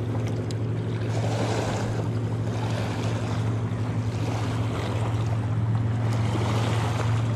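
Choppy lake water lapping against the rocky shore, with wind on the microphone and a steady low hum underneath.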